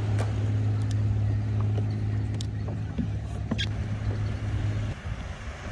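Steady low hum of a boat motor, with scattered light knocks and clicks over it. The hum cuts off suddenly about five seconds in.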